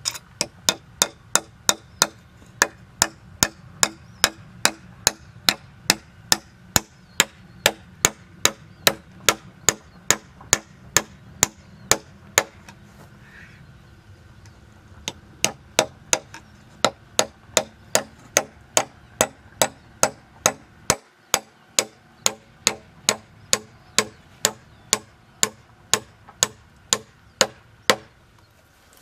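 Hammer blows in a fast, even rhythm, about two and a half sharp strikes a second. They stop for a couple of seconds midway, then go on again.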